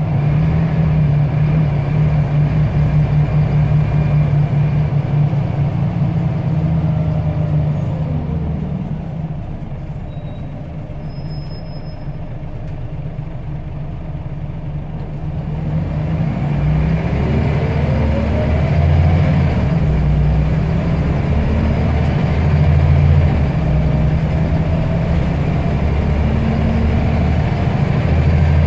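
Scania L94UB bus engine, a 9-litre five-cylinder diesel, heard from on board as the bus drives. It eases off with falling pitch about eight seconds in and runs quieter for several seconds, then pulls away again with a rising whine from about sixteen seconds.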